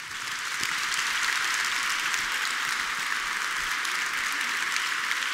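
Large theatre audience applauding, the clapping swelling during the first second and then holding steady.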